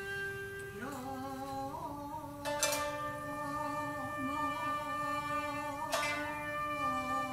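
Jiuta ensemble music: long, wavering sung notes over plucked shamisen and koto, with sharp plucks about two and a half and six seconds in.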